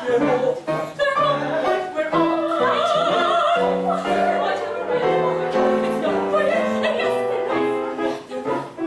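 Opera music: singing with accompaniment, in a quick run of short, changing notes.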